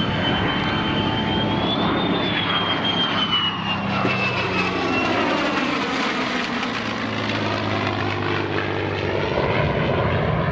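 An F-35A Lightning II and a P-51 Mustang flying past in close formation: a steady, loud jet roar carrying a high whine that rises in pitch and then falls as they pass overhead, over the lower drone of the Mustang's piston engine and propeller.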